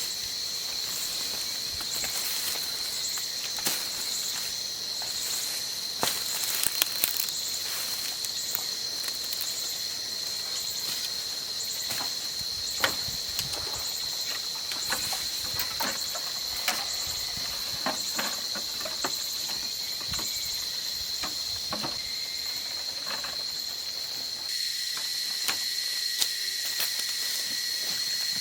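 Insects droning steadily on one high pitch, with scattered light clicks and ticks throughout. A second, lower-pitched insect call joins near the end.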